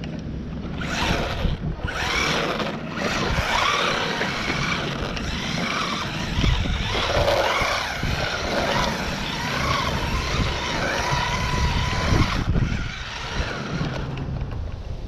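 Small brushed-motor RC drift car (Su Chi Yu 16301 / JJRC Q117E, 390 brushed motor) being driven, its motor whine rising and falling in pitch as it speeds up and slows, with tyre noise, dying away near the end. Wind noise on the microphone.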